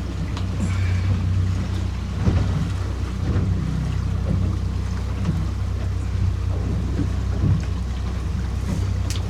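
Small boat's outboard motor running steadily, with waves slapping the hull and wind on the microphone.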